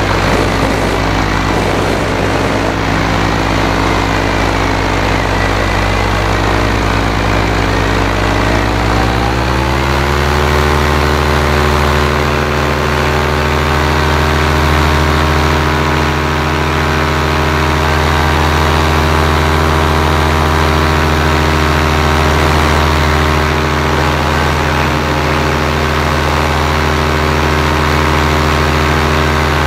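Paramotor engine and propeller running steadily in flight. About nine seconds in, the engine revs up, then holds steady at the higher speed.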